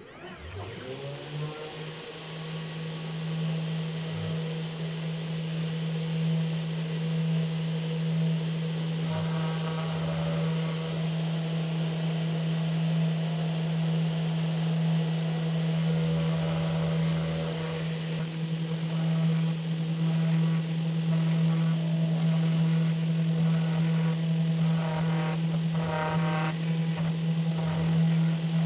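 Pandora 6050 CNC router spindle spinning up at the start, then running with a steady hum while its bit engraves a wooden bottle-opener blank. Rougher, chattering cutting noise comes and goes in short stretches as the bit carves the design.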